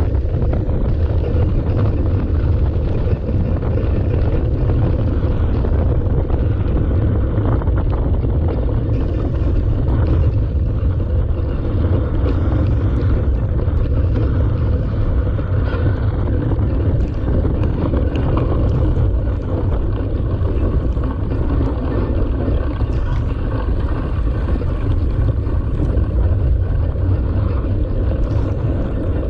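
Steady riding noise picked up by a camera mounted on a mountain bike racing on the beach: wind buffeting the microphone and the bike rolling along, a continuous low rumble.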